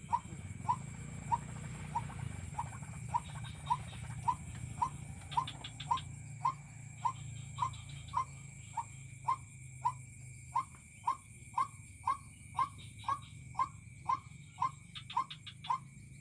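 White-breasted waterhen call: a short 'kwak' note repeated evenly, about twice a second, without a break.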